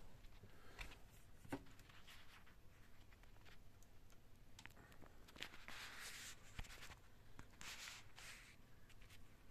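Faint handling sounds of a phone and its holder being repositioned: scattered light clicks and taps, with two short rustling scrapes about six and eight seconds in.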